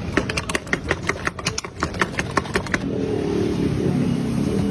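A quick run of sharp metallic clinks, about six a second, from a spoon striking a steel tumbler or bowl. The clinks stop about three seconds in. A steady low rumble runs underneath and grows rougher near the end.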